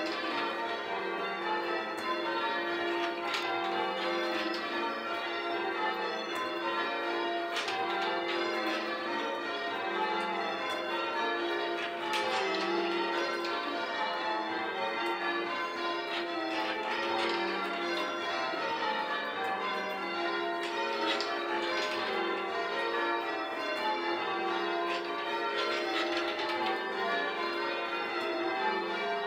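Church bells rung in changes, English full-circle change ringing: a steady, unbroken run of bell strikes, each note ringing on under the next.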